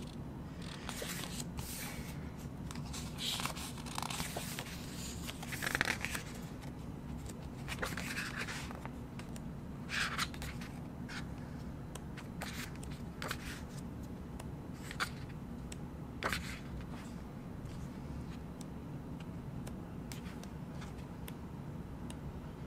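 Pages of a glossy album photobook being turned by hand: a string of short paper swishes and flicks at uneven intervals, thinning out after about sixteen seconds.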